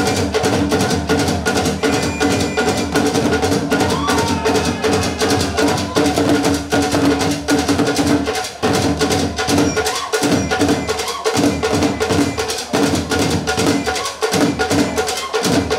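An African drum ensemble playing a fast, dense rhythm together on tall standing drums, live and without a pause.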